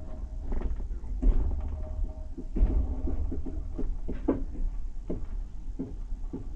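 Passenger train carriage rolling slowly into a station, heard from inside the carriage: a steady low rumble broken by irregular clunks and knocks from the wheels and carriage over rail joints and points.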